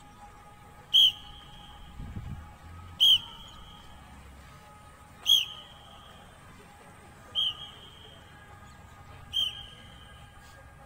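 Five short, sharp blasts on a whistle, evenly spaced about two seconds apart, keeping the pace for a group doing crunches in unison.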